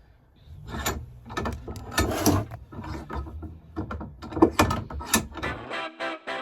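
A run of irregular metallic clicks, knocks and rattles from the parts of a door-lock mechanism and tools being handled, over a low steady hum. Guitar music comes in near the end.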